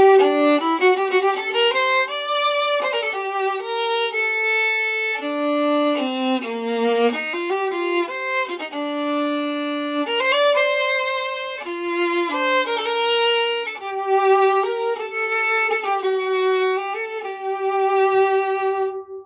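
A vintage European Stradivarius-model 15.5-inch viola played solo with the bow: a melody of held and moving notes with some double stops, ending on a long held note that stops near the end.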